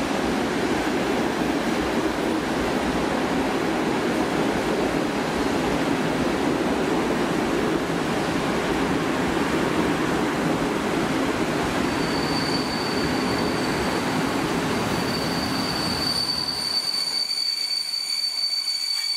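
Intercity passenger coaches rolling past at a platform, a steady rumble of wheels on rail. About two-thirds of the way through a high, steady wheel squeal sets in, and near the end the low rumble drops away, leaving the squeal.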